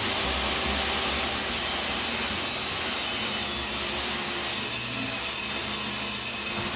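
Portable jobsite table saw running steadily while it rips a wooden board into a thin feature strip, with a shop vacuum running on its dust hose.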